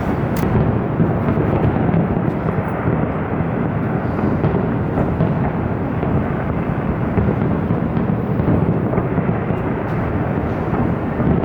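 Fireworks booming in quick succession, the overlapping bursts blending into a steady low rumble with faint crackles.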